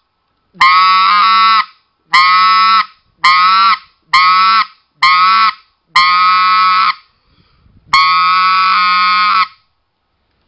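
RedBone specklebelly goose call blown with the voice hummed into it, giving the raspy rattle (voiced 'scratch') sound. It plays seven steady, separate notes of half a second to a second and a half, each starting with a sharp click; the last note is the longest.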